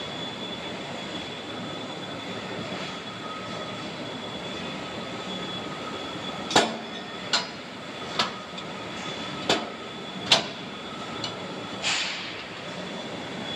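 Double-action hydraulic baler press running: a steady mechanical drone with a high whine. In the second half come about six sharp knocks, a little under a second apart, followed by a short rushing burst near the end.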